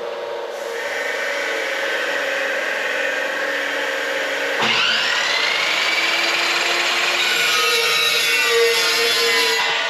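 Electric power tool running and grinding steel. A louder grinding sound starts sharply about halfway through, its pitch rising and then slowly sinking as the tool works.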